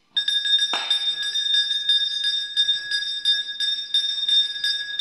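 Temple bell rung over and over, about three strikes a second, with a steady high ringing tone between strikes. It starts suddenly, and one heavier strike comes near the start.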